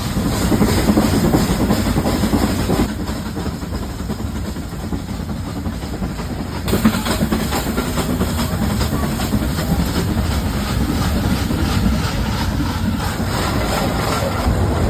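Nilgiri Mountain Railway train running along the track, a continuous rumble with a regular clatter of wheels over the rails through the second half.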